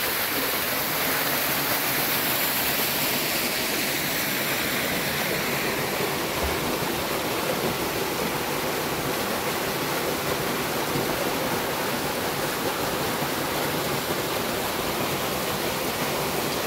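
Steady rush of water, as from a waterfall or fast stream.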